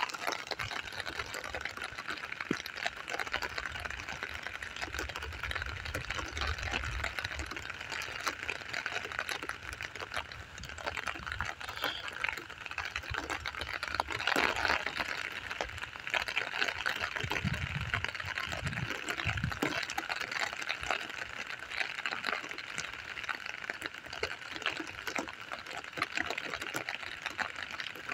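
Steady rain falling with many fine drop ticks. Low rumbles of distant thunder come in the first few seconds and again about two-thirds of the way through.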